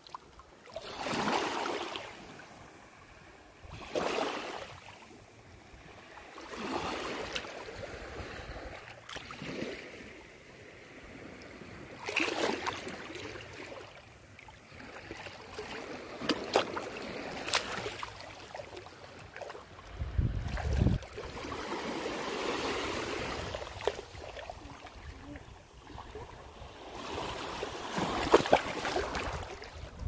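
Small sea waves lapping over a shallow sandy, shell-strewn beach, each wash swelling and fading every few seconds. A brief low rumble comes about two-thirds of the way through.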